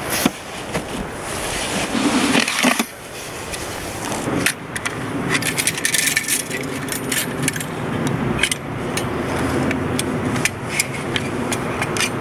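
Backpack fabric rustling and rubbing as the pack is opened, then a run of sharp metallic clicks and rattles as a folding bow saw's frame is unfolded and its pieces snapped together.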